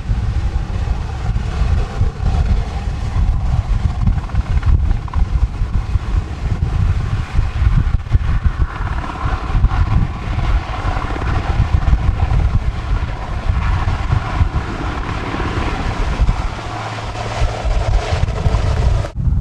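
Engine drone under heavy wind buffeting the microphone; the drone swells through the middle and fades toward the end.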